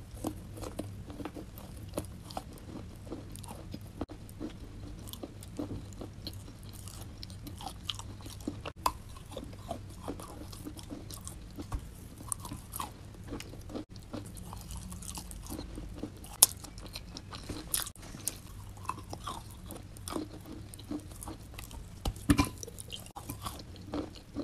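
A person biting into and chewing lumps of chalk coated in a creamy paste: a run of irregular crisp crunches and cracks, with a few louder snaps in the second half.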